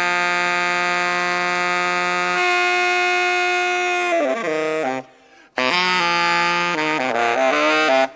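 Instrumental background music of long held notes, breaking off briefly about five seconds in and resuming with shorter, changing notes.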